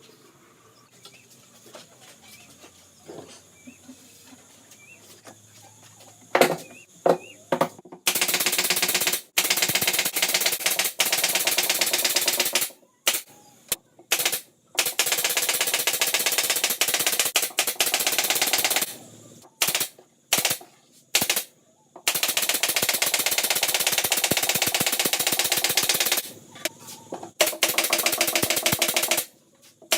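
Power impact driver driving screws into wooden subwoofer cabinet panels with a rapid, loud rattle. It runs in four long bursts of three to five seconds and several short ones, starting about eight seconds in after a few sharp knocks.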